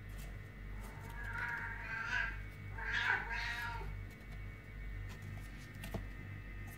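A kitten meowing twice: two long calls back to back, the first starting about a second in and the second, a little louder, ending about four seconds in.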